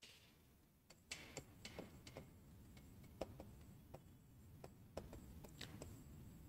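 Faint, irregular light clicks and taps, roughly one or two a second, over a low background hiss.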